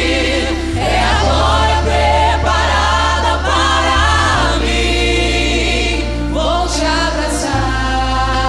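A large group of singers with microphones singing a Portuguese-language gospel song together like a choir, over instrumental backing. Sustained low bass notes change every three to four seconds.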